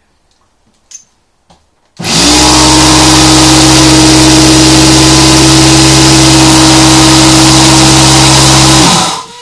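Cheap Aldi portable air compressor switched on about two seconds in, running loud and steady with an even motor hum for about seven seconds, then winding down as it is switched off, pumping up a motorcycle's rear tyre.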